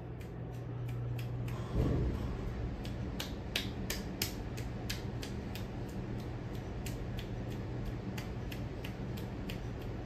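Craftmade 52-inch ceiling fan running at speed: a steady motor hum with a sharp tick repeating about three times a second, and one thump about two seconds in.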